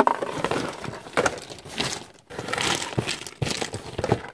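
A cardboard toy box with a clear plastic window being handled close to the microphone, its cardboard and plastic rustling and crinkling in a run of irregular bursts.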